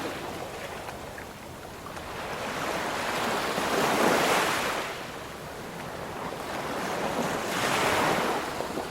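Ocean waves breaking and washing in, an even rushing noise that swells to a peak about every four seconds and then ebbs away.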